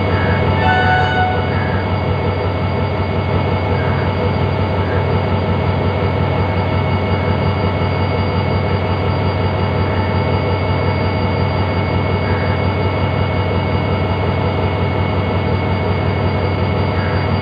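Diesel-electric locomotive engine of Pakistan Railways AGE-30 No. 6011 running steadily with an even, loud hum. A brief high tone sounds about a second in.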